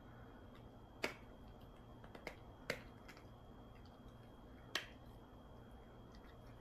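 A poodle gnawing a hard dog chew, its teeth cracking on the chew in sharp clicks: four loud ones, about a second in, twice in quick succession near three seconds, and once near five seconds, with fainter ticks between.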